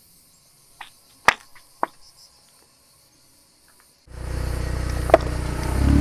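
A car rolling slowly on asphalt: a low, steady engine-and-tyre rumble starts suddenly about four seconds in, with one sharp crack about a second later. Before it there is only a faint high hiss with a few scattered clicks.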